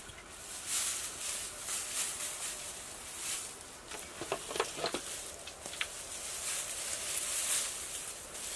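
Dry grass thatch rustling and crackling as long wooden poles are laid and dragged across it, with a few short, sharp sounds about halfway through.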